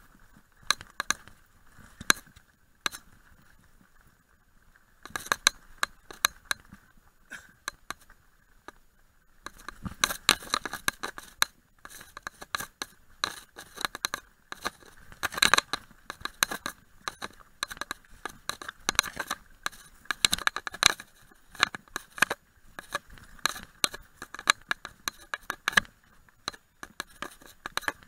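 Mountain bike clattering over a rocky gravel trail: a dense run of irregular rattles, clicks and knocks from the bike and its handlebar mount, sparse for a few seconds and then near constant.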